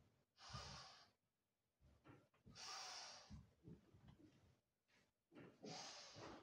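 A person breathing, three long audible breaths about two and a half seconds apart.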